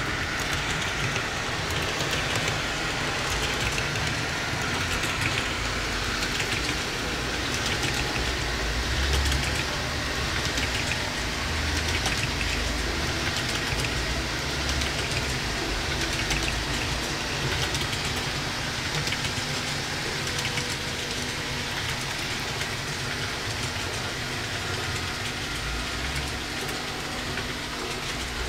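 Model container train running on the layout's track: a steady whirr of rolling wheels and motor with fast light clicking throughout.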